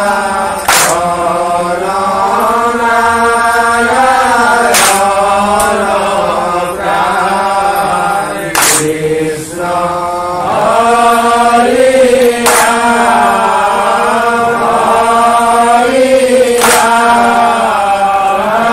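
Group of men chanting a nam-prasanga (Assamese devotional chant of the names of Krishna) together in long, held, gliding phrases. Sharp group hand claps land about every four seconds, marking the phrases.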